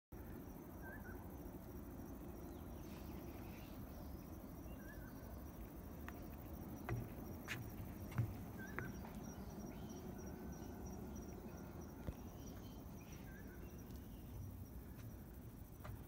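Insects trilling steadily in the forest, with a short chirp repeating about every four seconds. A few thumps come around the middle.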